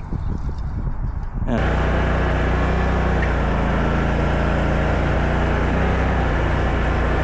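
Mini stand-up skid steer's engine running steadily. It cuts in suddenly about a second and a half in, after quieter, uneven low sound.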